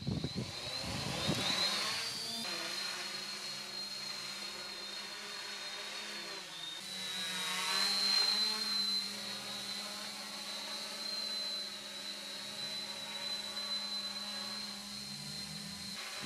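Hexacopter drone's six electric motors and propellers spinning up, their pitch rising over the first two seconds, then a steady high whine with a low hum in flight. It grows louder about eight seconds in, then settles again.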